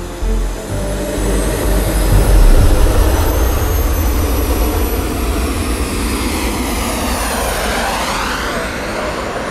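Jet turbines of a radio-controlled model B-2 flying wing flying by. There is a steady rushing noise with a high turbine whine that climbs and then sinks in pitch. It is loudest about two to three seconds in.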